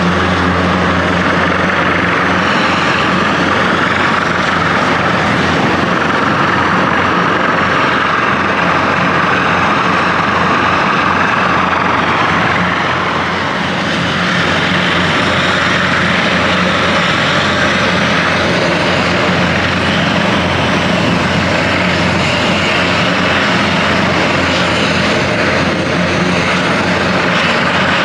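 Large helicopter running on the ground with its rotors turning: a steady turbine whine over the drone of the rotors, dipping briefly in level about halfway through.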